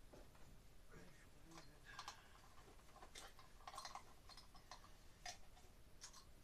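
Faint, irregular clicks and small rattles as hands work on the wiring of an overhead light fixture.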